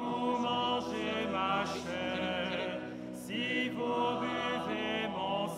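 Choir singing a slow hymn in held notes, the phrases changing pitch every second or two.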